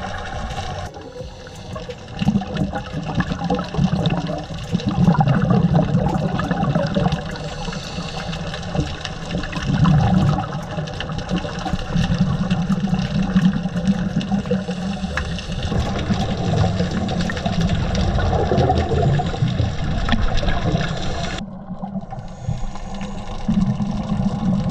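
Underwater sound through a diver's camera: a low, surging gurgle of water and exhaled scuba bubbles, with faint scattered clicks and crackles.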